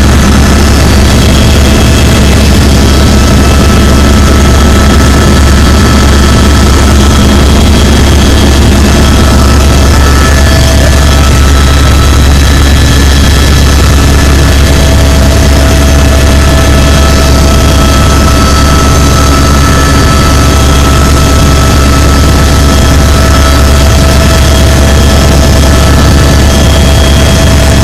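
Helicopter in flight, heard from inside the cabin: a loud, steady drone of engine and rotors, heavy in the low end, with several constant whining tones above it.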